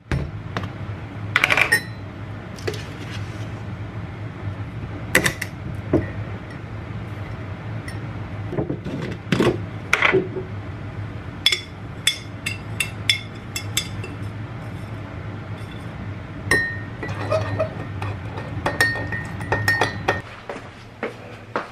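A metal spoon clinking against a ceramic mug, with a tin and a glass jar being handled on a countertop: a run of short sharp clinks and taps over a steady low hum. Near the end, water is poured from a kettle into the mug.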